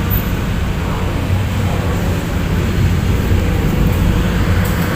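Steady low rumbling background noise with no distinct knocks or clicks.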